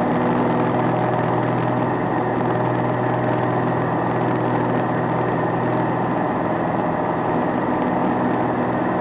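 Light single-engine propeller aircraft's engine and propeller running with a steady, even drone, heard inside the cockpit in flight.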